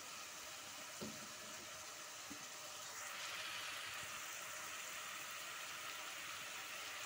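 Chopped onion sizzling faintly in ghee and oil in an aluminium pot, a gentle sauté. The hiss grows a little louder about three seconds in, and there is a small knock about a second in.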